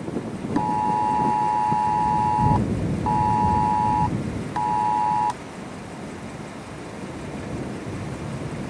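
Two-tone emergency alert attention signal from a weather radio, sounding in three bursts, one long and two shorter, over wind noise on the microphone. It is the signal that comes before a weather warning broadcast.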